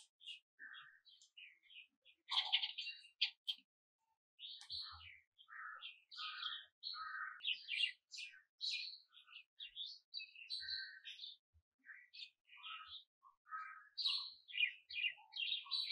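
Small birds chirping in a quick, irregular run of short high calls, with a brief pause about four seconds in.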